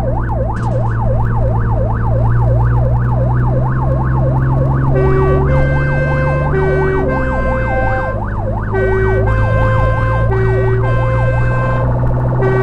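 Fire engine's siren sweeping rapidly up and down in a yelp over the truck's steady engine drone. About five seconds in, a two-tone siren joins, alternating high and low notes. Near the end the yelp stops and the two-tone carries on.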